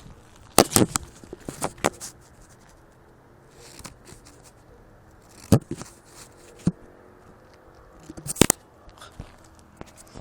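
Scattered sharp clicks and scrapes: a quick cluster in the first two seconds, then single clicks about five and a half and six and a half seconds in, and a loud cluster about eight and a half seconds in.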